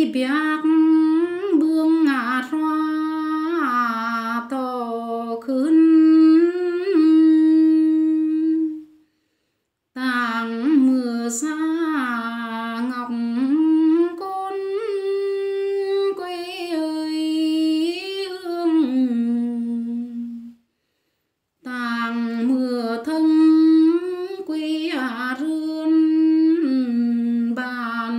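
A woman singing a slow folk melody unaccompanied, with long held notes that waver and slide between pitches. She sings three phrases, each cut off by about a second of silence.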